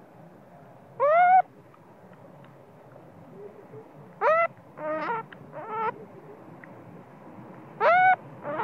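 Baby macaque crying: about six short, high, wavering calls, each rising then falling in pitch, the loudest about a second in, at four seconds and near the end. A sleepy infant fussing at its mother's breast.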